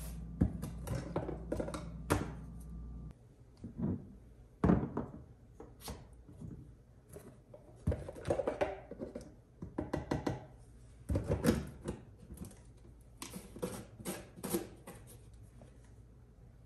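Glass storage jar and plastic container handled on a kitchen countertop: a run of knocks, clinks and taps as the container is set down and a wooden lid is pressed onto the jar.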